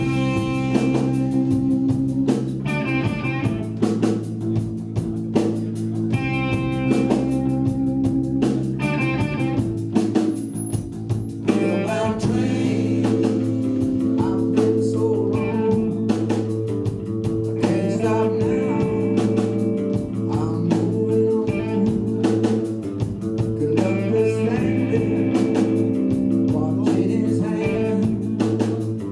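Live blues-rock band playing: electric guitar lines over a steady bass and drum beat.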